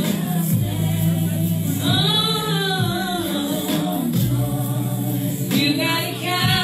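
A woman singing a slow ballad into a karaoke microphone over a backing track, with long, wavering held notes.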